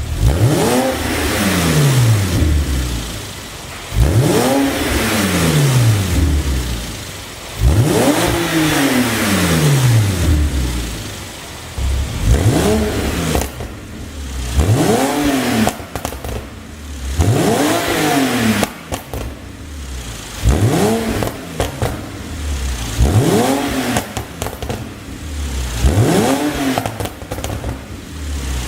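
Porsche 987 Boxster S 3.4-litre flat-six free-revved in repeated blips, about nine in all, each climbing and then falling back toward idle. Exhaust popping and crackling on the overrun as each rev falls, from a tune set up to make pops.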